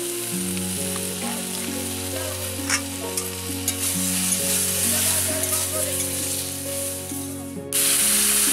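Vegetables frying in hot oil in a metal wok, a steady sizzle, with a metal spatula clicking and scraping against the pan as they are stirred. Near the end the sizzle jumps suddenly much louder, as water is added to the hot oil. Soft background music runs underneath.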